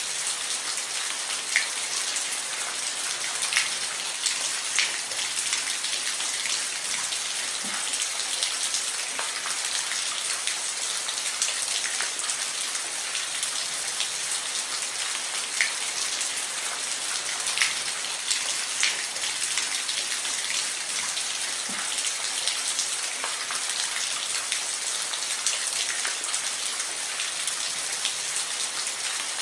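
Steady rain falling on a roof: an even hiss of rain with individual drops ticking sharply every second or two.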